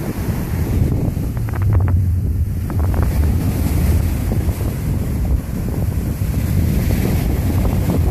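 Wind buffeting the microphone: a steady, heavy low rumble, with a few faint clicks about two seconds in.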